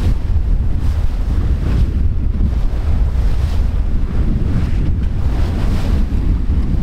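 Strong wind buffeting the microphone, a steady low rumble, over the rush of the sea aboard a sailboat.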